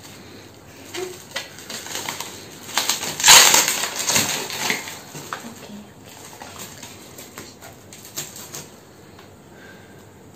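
Plastic bubble-wrap packaging rustling and crinkling as it is cut open with scissors and unwrapped. The loudest burst comes about three seconds in, then quieter scattered crackles.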